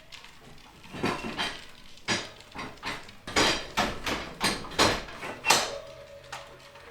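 A run of clanks and knocks as hard objects are handled, about ten hits over four seconds, followed by a short steady tone near the end.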